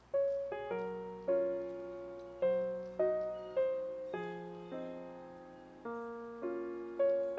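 Background piano music: a slow melody of single notes and chords struck about once or twice a second, each ringing and fading away.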